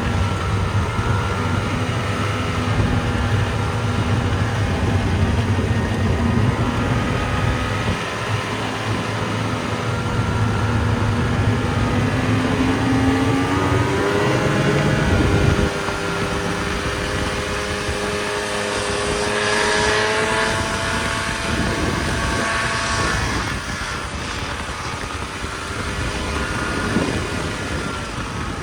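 Snowmobile engine running under way, over a steady rushing noise. About halfway through its pitch climbs for a few seconds under throttle, then drops off abruptly, and it settles back to a steady run.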